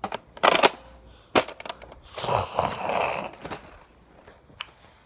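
Hard plastic clicks and knocks from a Nerf blaster being handled: a sharp cluster of clicks about half a second in, another click a second later, and a longer scraping rustle in the middle.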